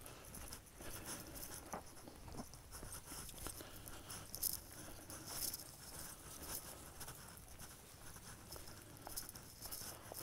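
Faint, irregular crunching and rustling of footsteps and dry grass along a dirt trail through dead prairie grass.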